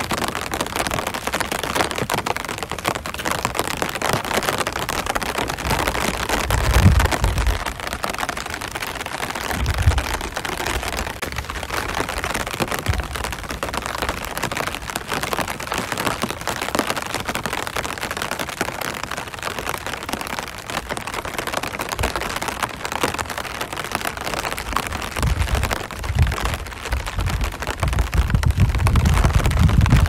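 Rain falling steadily on an umbrella: a dense spray of many small drop taps. A few low rumbles come and go, the longest near the end.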